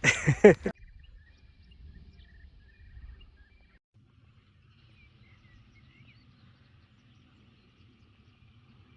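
Faint, scattered bird chirps over a quiet low background rumble.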